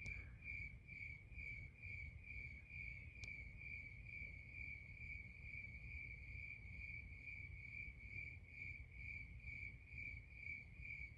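Cricket chirping steadily at one pitch, about two chirps a second, faint over a low background rumble.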